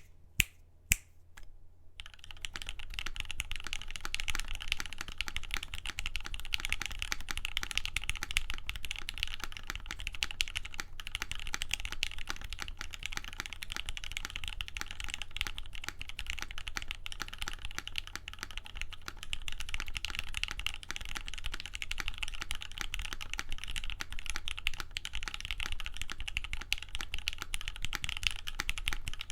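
Typing on a GS60 60% mechanical keyboard with Gateron Ink Black linear switches lubed with Krytox 205g0, a UHMWPE plate and GMK keycaps. A few single key presses, then fast, continuous typing from about two seconds in.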